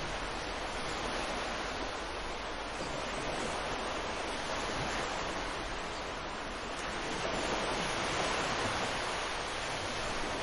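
Ocean surf as a continuous hissing wash of waves, swelling a little about seven seconds in.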